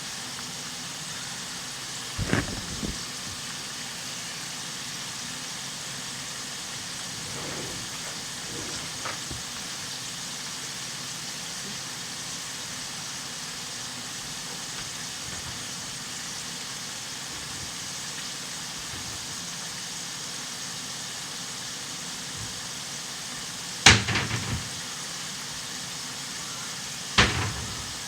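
A steady hiss with a few sharp knocks and clatters over it: one about two seconds in, the loudest about 24 seconds in, and another near the end.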